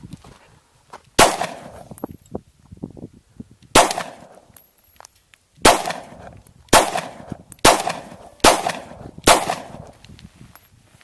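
Seven pistol shots from a Glock handgun: two shots a couple of seconds apart, then five more at roughly one a second, each a sharp crack with a short echo.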